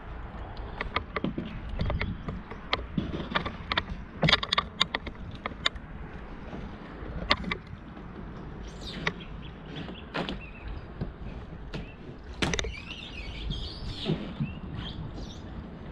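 Cedar strip canoe being handled and shifted against a steep, brushy riverbank: scattered knocks and scrapes of the wooden hull against bank and branches, with twigs cracking. A low rumble runs underneath, and a bird chirps briefly near the end.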